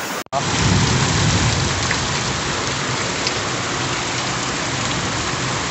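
Heavy rain pouring steadily onto a flooded street, after an abrupt cut a fraction of a second in.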